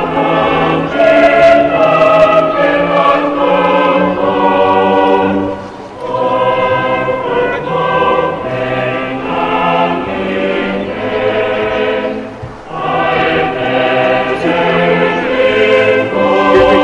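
A group of voices singing a hymn together in chorus, in long held phrases with short breaks between them.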